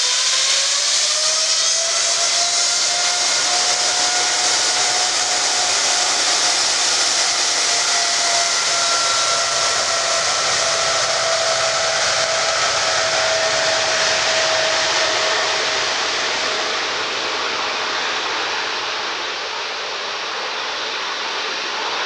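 Boeing 777-300ER's GE90 turbofan engines spooling up for takeoff: a loud jet rush with a whine that rises in pitch over the first couple of seconds, then holds steady and fades as the airliner moves away down the runway.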